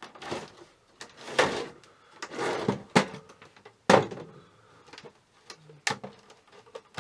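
Inner chassis of a Sony Vaio PCV-LX1 computer sliding out of its outer case in three scraping pulls, followed by sharp knocks about three and four seconds in and another near six seconds.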